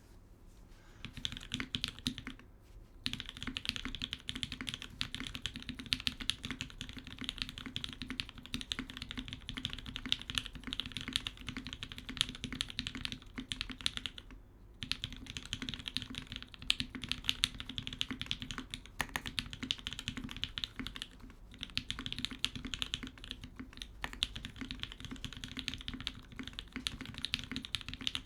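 Steady fast typing on a TGR 910 RE mechanical keyboard with lubed Gateron Black Ink linear switches, a carbon fibre plate, no dampening and GMK keycaps: a dense run of keystroke clacks that starts about a second in and pauses briefly twice, once near the start and once about halfway.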